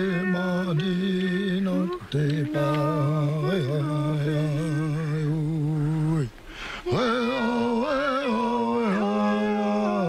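A single voice singing a wordless, chant-like song in long held notes with a wavering vibrato, broken by two short pauses for breath.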